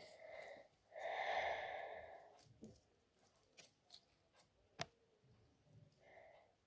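Slime being handled, giving small sticky clicks and pops, with a breathy sigh-like sound about a second in that is the loudest part and another shorter one near the end.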